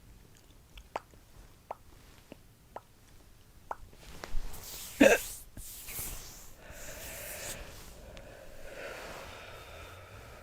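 A girl hiccups once, sharply and loudly, about halfway through, after several faint, short clicks. A few seconds of soft noise follow.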